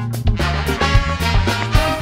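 Live funk big band playing together: saxophones, trumpet and trombone sound a held line together over electric bass, guitar, piano and drums. The horns swell in about half a second in, over a steady bass line and regular drum hits.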